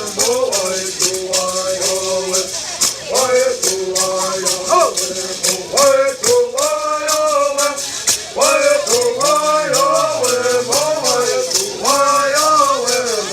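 Native American bird songs sung to the steady shaking of gourd rattles: chanted melody lines that rise and fall in repeated phrases over an even rattle beat.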